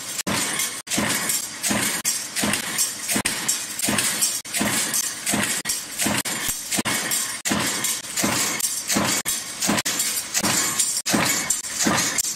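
C-frame punch press running a progressive die, stamping steel strip into rectangular air duct corners: a fast, steady rhythm of sharp metallic bangs and clatter.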